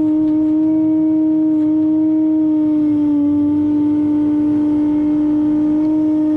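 Construction machinery running with a steady, loud whining hum that dips slightly in pitch about three seconds in.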